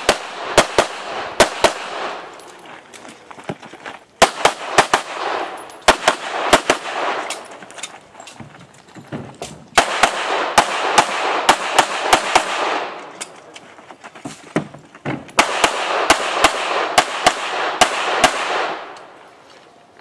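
Springfield XDm 5.25 9mm pistol firing rapid strings of shots, four strings each lasting two to three seconds, with a few single shots in the short pauses between them. Each burst of shots leaves a ringing echo behind it.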